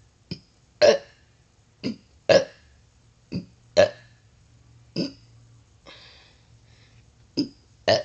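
A girl's forced, fake burps: about nine short burps in a row, spaced irregularly, some under a second apart.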